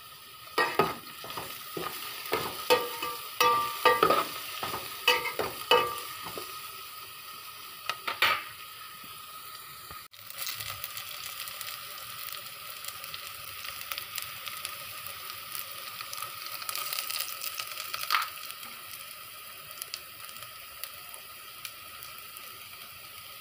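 Metal spoon knocking and scraping against an aluminium pot while sliced onions are stirred, a quick run of knocks in the first six seconds and one more about eight seconds in. After a brief drop-out about ten seconds in, a steady frying hiss follows as oil goes onto the onions, with one more knock later on.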